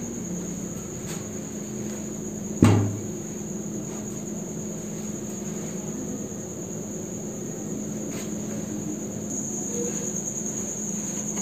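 A single sharp knock about two and a half seconds in, as a glass bowl is set down on the table, with a couple of faint clicks of kitchenware. A steady high-pitched tone and a low hum run underneath throughout.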